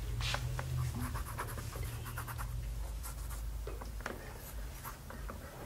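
Pencil scratching on paper in many short, quick strokes as a drawing is shaded.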